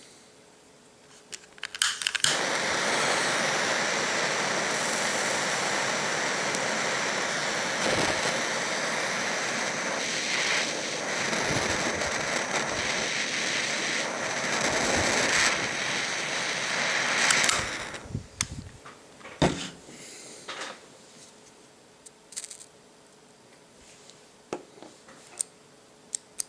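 Butane jet torch lighter: a few clicks as it lights about two seconds in, then its flame hisses steadily for about fifteen seconds. It is heating a rebuildable atomizer's coil and steel mesh to oxidize them. The flame stops suddenly, followed by scattered small clicks of handling.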